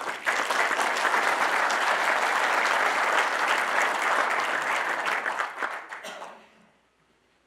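Large audience applauding, a dense steady clatter of many hands clapping that dies away near the end.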